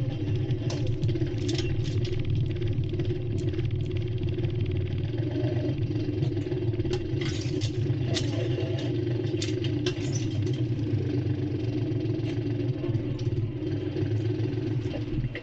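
Tractor engine running steadily, with scattered sharp clicks and clanks over it.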